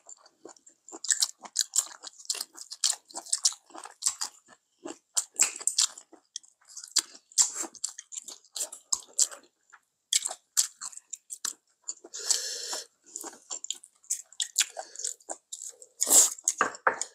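Two people eating a Korean home meal with chopsticks, recorded close up for a mukbang: a steady run of short, irregular chewing and biting sounds. A longer, louder mouth sound comes about twelve seconds in, and another near the end.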